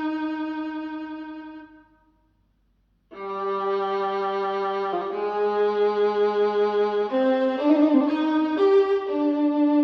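Violin music played through a KEF iQ1 bookshelf speaker: a held bowed note fades away, then after about a second of silence a new passage starts with long sustained bowed notes changing pitch every second or two.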